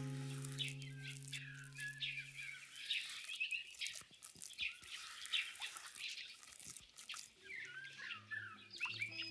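Short, high chirping calls like birdsong, many in quick succession, over soft background music. A held low note fades out in the first couple of seconds, and low notes come back near the end.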